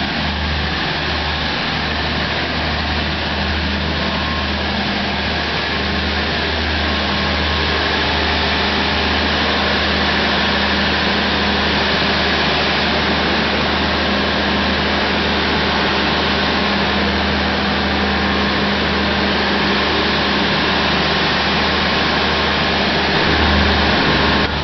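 Diesel generator set of an LHB end-on-generation power car running steadily: a loud, even engine drone with a constant low hum, heard inside the generator room.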